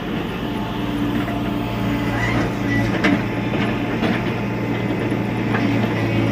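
TATA Hitachi EX70 Super Plus excavator running steadily during demolition work, with a few sharp knocks and clatters, the loudest about three seconds in.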